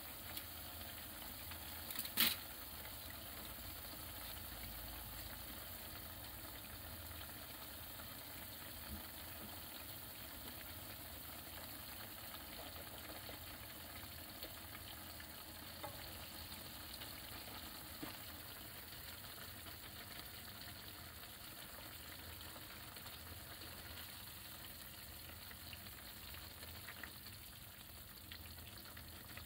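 Nikujaga broth simmering in a cast-iron skillet, reducing with miso and butter in it: a faint, steady sizzling bubble. A brief sharp noise comes about two seconds in, as the aluminium-foil drop lid comes off, and light stirring noises follow.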